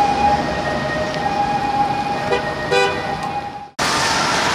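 An emergency vehicle's siren holds a steady tone, with two short horn toots a little over two seconds in. At a sudden cut near the end the sound gives way to an even hiss of traffic on a wet street.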